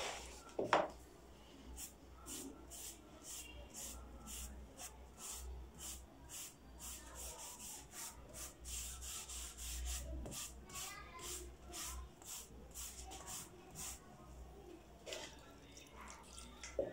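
Rhythmic back-and-forth hand rubbing on the wooden (MDF) speaker cabinet, about three strokes a second, stopping about three-quarters of the way through, the kind of stroke made when sanding or rubbing on a polish finish.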